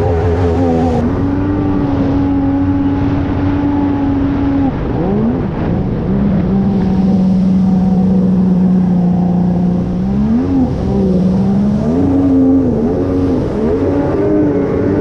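Jet ski engine running hard at steady throttle, then easing off about five seconds in and holding a lower, even pitch, with short throttle blips near the end.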